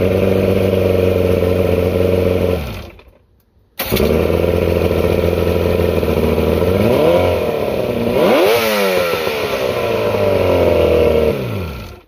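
Mercury two-stroke outboard running on its newly rebuilt internal wiring harness. It winds down and stops about two and a half seconds in, is running again a second later, is revved up and back down twice near the middle, then runs steadily and winds down to a stop near the end.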